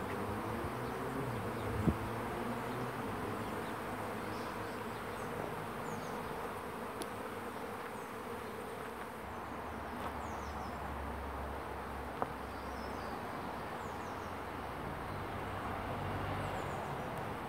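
A swarm of honeybees in flight: a steady, dense buzz of many bees at once. A sharp click sounds about two seconds in and another about twelve seconds in.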